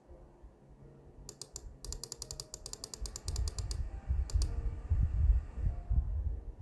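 Runs of quick, evenly spaced light clicks, about ten a second, from computer controls being worked while photo-editing sliders are adjusted. In the second half a low rumble is the loudest sound.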